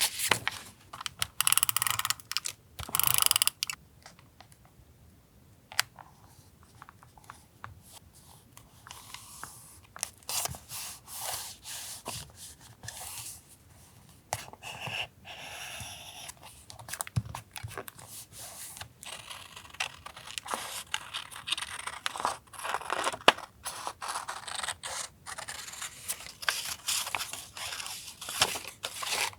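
Paper collage materials being handled for journal decorating: a busy run of rustles and scrapes with small clicks. It is loudest in the first few seconds, quieter for several seconds, then busy again.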